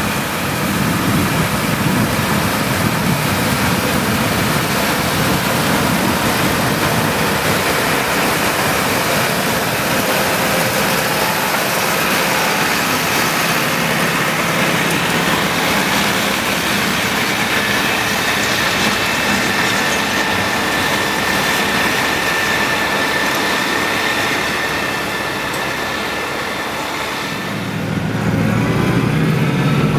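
Tractor pulling a steel trail groomer over packed snow: the engine runs under a steady clatter and scrape from its tyre chains and the dragging groomer, with a thin squeal for several seconds in the second half. Near the end the low engine sound becomes stronger.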